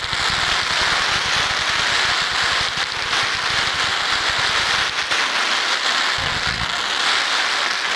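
Fireworks display: a barrage of ground-fired comets and fountains, a dense continuous hiss over a rapid run of low thumps as the shots leave their tubes. It dies away right at the end.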